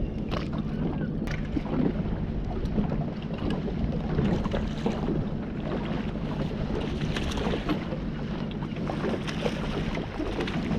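Boat's engine running steadily under wind buffeting the microphone, with scattered small knocks.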